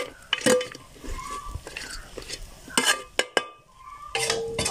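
A perforated metal ladle stirring and scraping chicken pickle (chicken achar) in an aluminium pot, with a few sharp scrapes and knocks against the pot's side. A steady tone comes in near the end.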